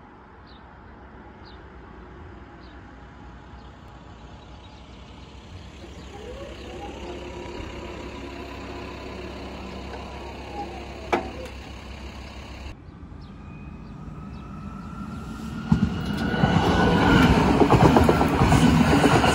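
A red DB S-Bahn electric train passing a level crossing close by. It grows loud about three quarters of the way through, a rushing rumble of wheels on rails with a whine on top, and is loudest near the end.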